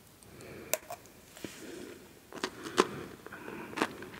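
Close-miked eating of crunchy salty snacks: a handful of sharp crunches and clicks, roughly a second apart, over soft low rustling.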